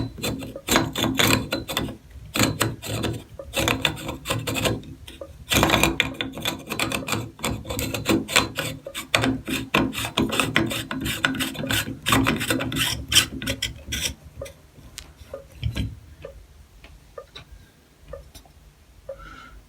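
Screwdriver driving the screws of a bathtub faucet's trim plate, metal rasping in quick, irregular strokes. The strokes stop about two-thirds of the way through, leaving a few light clicks.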